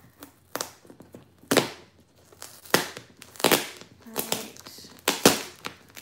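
Packing tape being picked at and ripped from a heavily taped cardboard box, in a series of short, sharp tearing pulls about a second apart.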